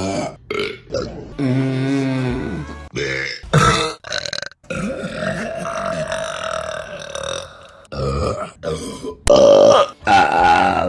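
A string of women's burps, one after another with abrupt breaks between them. One long, drawn-out burp lasts about three seconds in the middle, and the loudest comes near the end.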